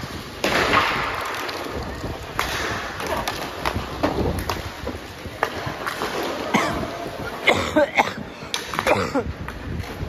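Sounds of play in a team match: scattered sharp knocks and thuds with shouted calls from players, the calls loudest near the end.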